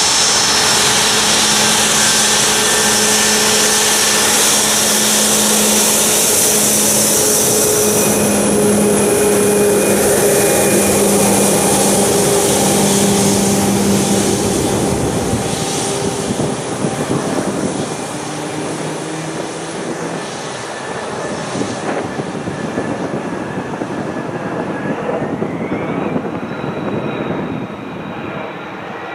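Boeing 737 MAX 8's CFM LEAP-1B turbofans running at taxi power as the airliner rolls past: a loud, steady jet noise with a high whine. It drops off about halfway through as the aircraft moves away, and near the end a whine climbs in pitch and then holds.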